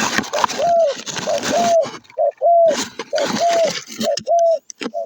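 Dove cooing repeatedly: short arched coos, many in pairs, about two or three a second, with bursts of rustling noise between them.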